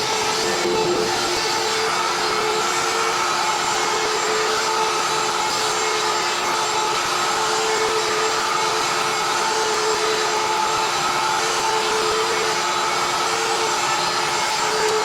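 CNC router cutting plywood, its spindle whining over the rush of the dust collection: a steady hum with several held tones over a hiss.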